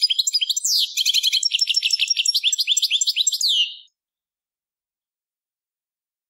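European goldfinch song: a fast run of twittering, trilling notes, ending about four seconds in on a drawn-out falling note. This is the last note of the song phrase, which goldfinch breeders call the 'vizio'.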